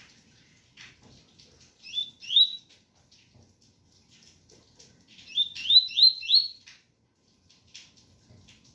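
Double-collared seedeater (coleiro) singing the pure 'tui-tui' song type: short rising whistled notes, two about two seconds in and a quick run of four a few seconds later, over faint rain.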